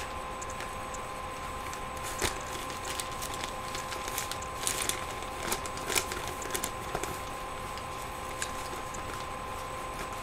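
Steady background hum with a faint constant whine, and a scattered run of small clicks and crackles from about two seconds in to about seven seconds in.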